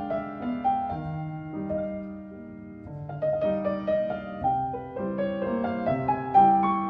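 Background piano music: a gentle melody of single notes and chords, growing quieter for a moment about two seconds in before picking up again.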